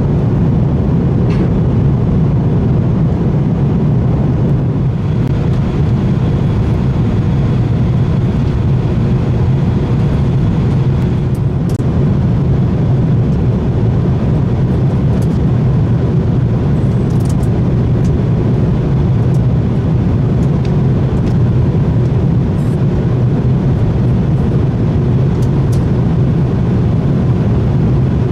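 Steady low rumble of an Airbus A330's engines and airflow heard inside the passenger cabin as the airliner descends on approach to land.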